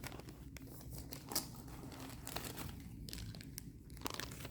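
Packaging being handled: crinkling and rustling with scattered light clicks as boxed items are picked up and set down.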